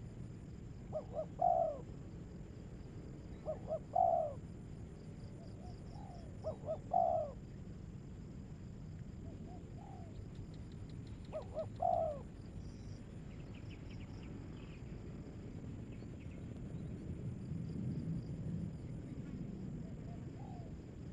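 A dove cooing in short phrases, two or three quick notes and then a longer one. The phrases repeat about every two to three seconds, five times over the first twelve seconds, and a fainter call comes near the end.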